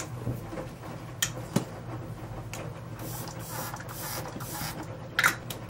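Bio-Heal Boh cream mist spray bottle sprayed onto the face four times in quick succession, each a short hiss, about three seconds in, over a steady low hum. A short louder sound comes near the end.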